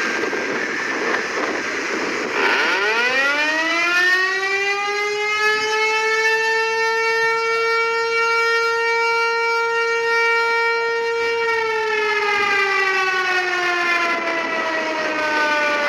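Outdoor tornado warning siren: after a rushing noise at the start, a single tone rises in pitch over about three seconds, holds steady for several seconds, then slowly falls in pitch.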